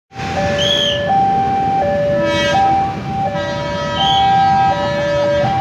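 Railroad level-crossing warning alarm sounding a steady two-tone signal, alternating between a low and a high note about every three-quarters of a second, warning that a train is approaching. Two short high-pitched notes sound over it, about a second in and again near four seconds.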